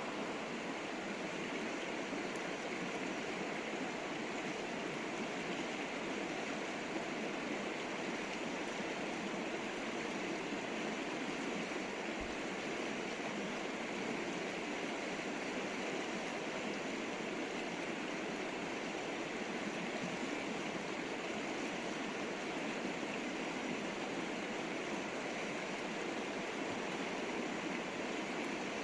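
A river flowing over stones: steady, even rushing of water.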